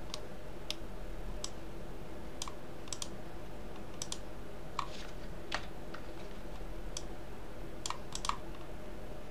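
Computer keyboard keys and mouse buttons clicking irregularly, about fifteen separate presses, over a steady low hum.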